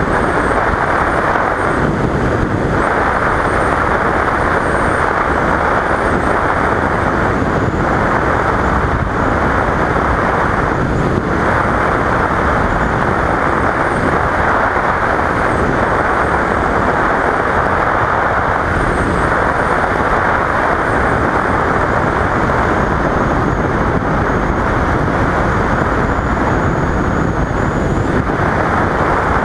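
Steady, loud rush of wind and road noise from a motorcycle ride at cruising speed, heard from a camera on the rider's helmet, with the 2015 Yamaha FZ-07's parallel-twin engine running underneath. The sound is muffled, with little treble.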